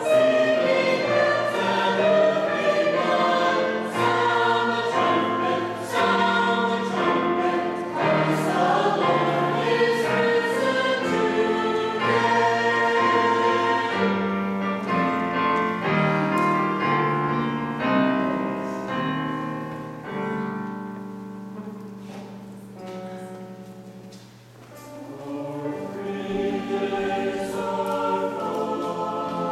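Church choir singing in sustained chords. About three quarters of the way through the singing fades to a quiet low, then swells back in.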